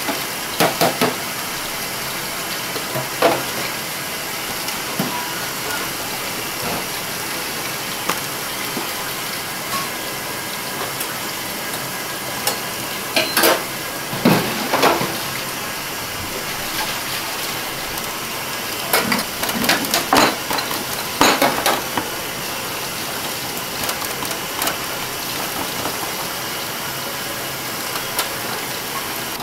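Chef's knife cutting raw chicken thighs on a wooden cutting board: sharp knocks and scrapes of the blade on the board in a few short clusters, over a steady hiss.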